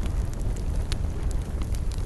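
Wood campfire crackling: scattered sharp pops and snaps, one louder pop about a second in, over a steady low rumble.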